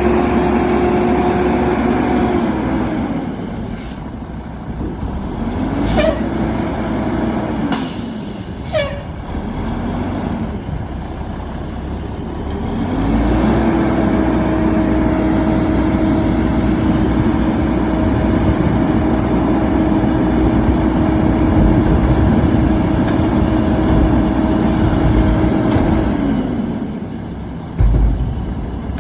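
Mack LE garbage truck with a Heil Half-Pack body, its diesel engine revved up and held at a steady speed to drive the hydraulics, dropping back to idle, with two short rev-ups in between. Several sharp air hisses come about a third of the way in, and a thump near the end.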